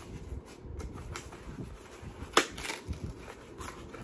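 Hands unwrapping and handling a jar candle's packaging: rustling and small clicks, with one sharp knock about two and a half seconds in, followed by a brief crinkle.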